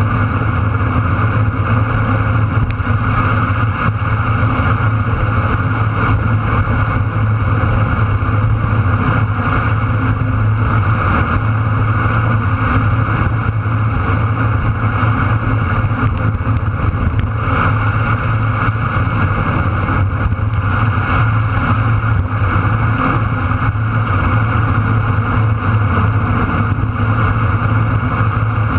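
Steady, even drone of a vehicle travelling at speed, engine noise mixed with wind rush, heard from a camera mounted on the vehicle.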